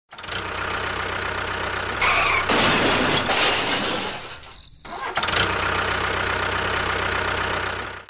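A motor running steadily with a low hum. About two seconds in, a louder rushing noise joins it for roughly two seconds, and the sound dips briefly before the steady running resumes.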